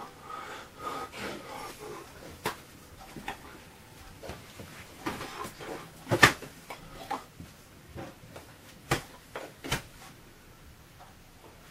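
Hands clapping and slapping against each other and the chest during fast signing: scattered sharp smacks, the loudest about six seconds in, with softer rustling and breathy noises between them.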